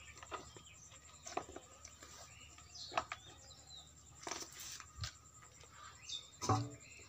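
Faint, scattered clicks and rustles of a hand sorting through a tub of small wet fish, shrimp and leaves in a plastic basin.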